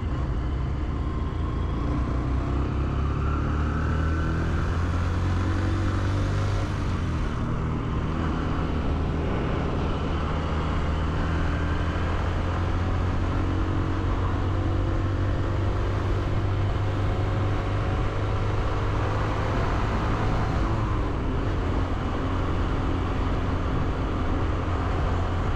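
Honda CB125F's 125cc single-cylinder engine running while riding, its pitch rising and falling with throttle and gear changes, over a steady low rumble.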